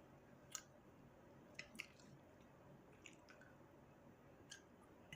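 Faint wet mouth clicks and smacks of someone chewing food, a handful of short separate sounds spread over a few seconds.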